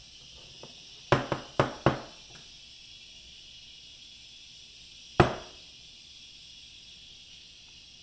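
Hard knocks against the kitchen countertop while handling the milk pitcher and cup: four quick knocks within about a second, then one louder single knock about four seconds later.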